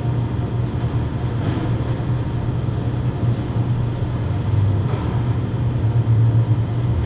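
Steady low hum with no words or music over it.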